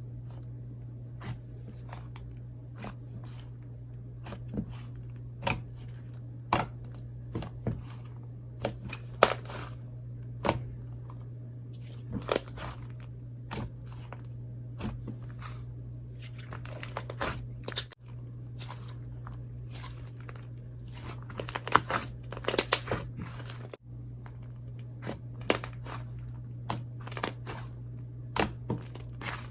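Fluffy slime being stretched, pressed and pulled by hand, giving irregular sharp crackles and small pops with tearing sounds, thicker in a couple of stretches. A steady low hum runs underneath.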